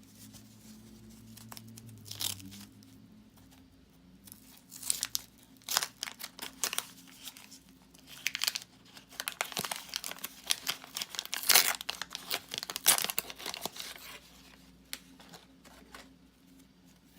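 Waxed-paper wrapper of a 1984 Topps football wax pack being torn open and crinkled by hand, in scattered rustling bursts that are busiest in the middle.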